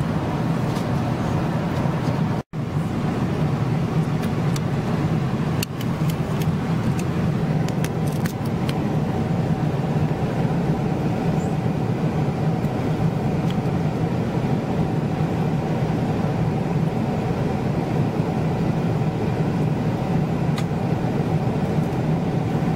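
Steady cabin roar of a Boeing 777-300ER in cruise, the airflow and engine noise heard in the rear economy cabin. It cuts out for an instant about two and a half seconds in, and a few faint clicks come a few seconds later.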